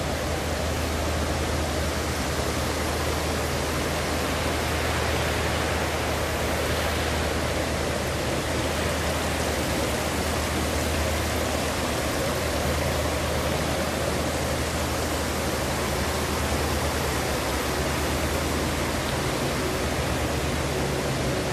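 Steady room noise of an indoor pool hall: an even hiss over a low machine hum.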